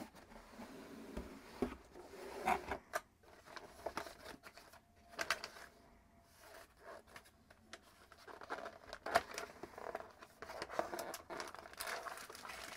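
Cardboard packaging being handled: irregular scrapes, taps and rustles as a small box is lifted out and opened. Near the end a plastic-wrapped accessory is pulled out, rustling and crinkling.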